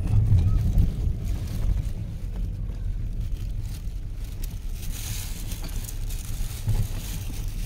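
Low, steady road and engine rumble inside a moving Honda City sedan's cabin, with wind noise from an open window that grows stronger about five seconds in.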